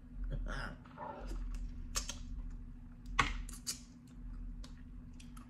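Close-up eating sounds of a person eating blue crab: wet lip smacks, sucking and irregular sharp clicks, the loudest about three seconds in.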